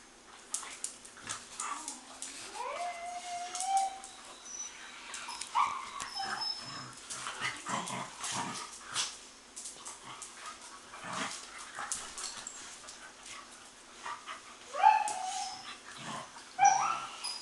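Several young dogs play-wrestling, with rising whines, yips and yelps. The loudest yelps come near the end, over a patter of quick clicks and scuffles that fits claws on a tile floor.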